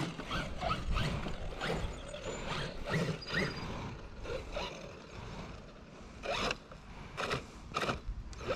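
Electric RC truck driven in short, irregular bursts of throttle: the motor and drivetrain whir up and drop away again and again, some bursts with a brief rising whine.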